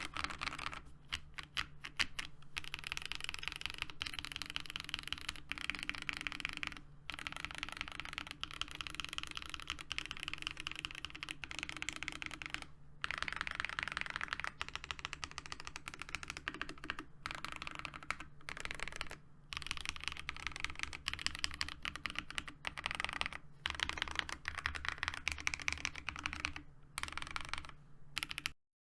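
Geonworks Frog TKL mechanical keyboard with lubed and filmed Zepsody Bluebonnet linear switches and PBT keycaps: keys pressed in a rapid, random stream of clacks with brief pauses. It cuts off suddenly near the end.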